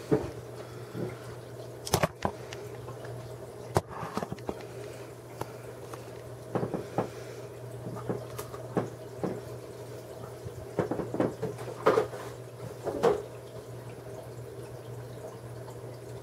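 Steady low hum and water trickling from an aquarium's hang-on-back filter, broken by a series of handling knocks and clicks, the loudest about two, four, twelve and thirteen seconds in.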